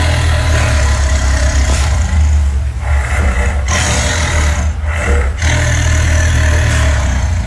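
Dinosaur creature sound effect layered from old kaiju monster sounds and big-cat growls: a long, deep rumbling growl that breaks off briefly a few times.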